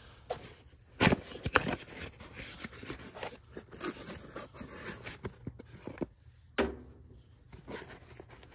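Irregular clicks, knocks and scrapes of hands handling parts at close range, the loudest clicks about a second in.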